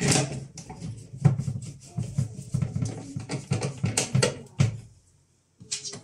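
Hand screwdriver driving a screw into the door ring of an LG washing machine to fix the new door handle: a rapid, continuous scraping and clicking for almost five seconds, stopping suddenly, followed by a couple of light clicks near the end.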